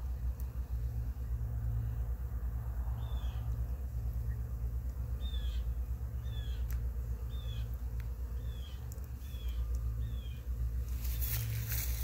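A bird calling with short, high, falling notes, seven in all, repeated about once a second from the middle on, over a steady low rumble. A crackling rustle starts near the end.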